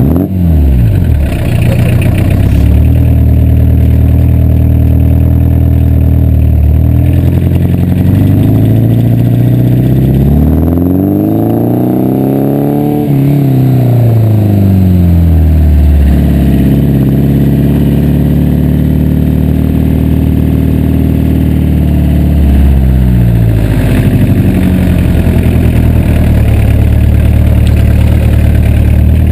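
VW Rabbit pickup's four-cylinder diesel engine, heard close at the tailpipe as the truck drives off. The note climbs steadily to a peak about twelve seconds in, drops sharply at the shift, then runs steady, with a brief dip and rise near the end.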